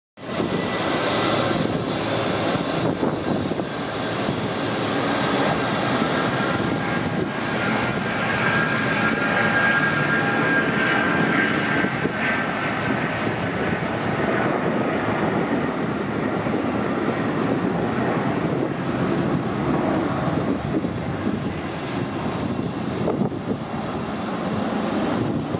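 Boeing 757-200 freighter's twin Pratt & Whitney PW2040 turbofans at takeoff thrust through the takeoff roll and lift-off: a loud, steady jet rush with a high whine that is strongest about a third to halfway through as the aircraft passes, then eases a little as it climbs away.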